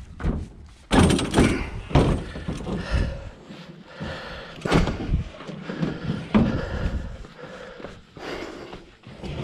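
A full-suspension mountain bike being lifted and set into a pickup truck's bed: a series of knocks and clunks, the loudest about a second in.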